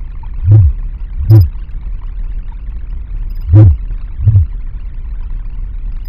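Synthesized sound from a Pure Data patch: four deep thumps, each with a short rise and fall in pitch, over a low steady hum, with a brief high electronic chirp about a second in. The sound is played live, its settings changed by toilet paper rolls moved over ultrasonic sensors.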